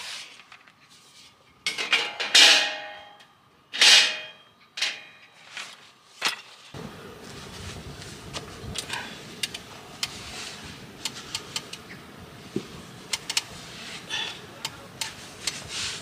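Handling noise from a black folding camp table being pulled from its carry bag and unfolded: several sharp clacks and rustles about a second apart, some with a brief metallic ring. After an abrupt change, a steady outdoor background with scattered light taps and clicks from handling a boot.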